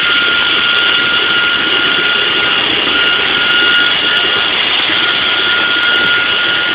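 Vacuum cleaner (hoover) running steadily, its motor giving a loud rushing sound with a high steady whine.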